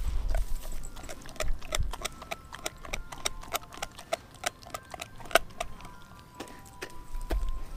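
A Doberman gnawing on a raw frozen pig's foot: an irregular run of sharp cracks and clicks as her teeth crunch the frozen meat and bone. The cracks are thickest in the middle and thin out near the end.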